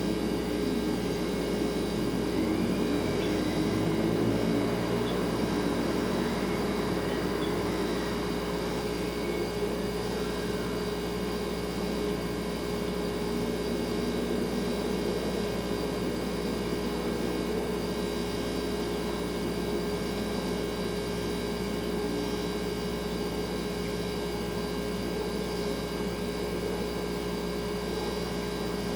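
Refrigerator running with a steady hum made of several fixed tones, over a low room rumble. A few faint rising-and-falling whistling tones drift through during the first several seconds.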